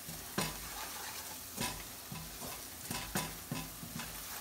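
Wooden spatula stirring onions and berbere frying in oil in a nonstick pan, with a steady sizzle and several short scrapes of the spatula against the pan.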